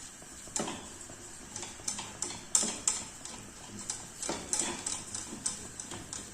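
A utensil clicking and scraping against a saucepan at an uneven pace, about a dozen knocks, as flour is stirred into melted margarine to make the roux for a béchamel.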